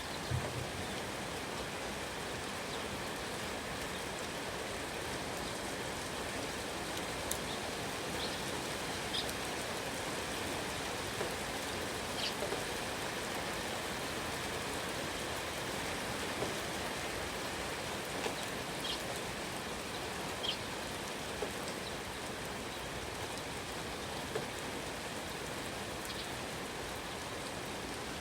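Steady rain falling, an even hiss with drops pattering on surfaces. About ten brief high chirps of small birds are scattered over it.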